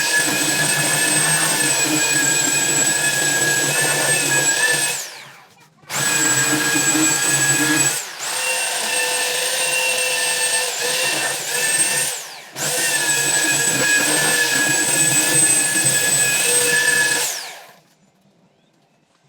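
Small electric motor, a power tool or shop vacuum, running with a steady high whine in three spells. Each spell ends in a quick falling spin-down as it is switched off, and the last stops about 17 seconds in.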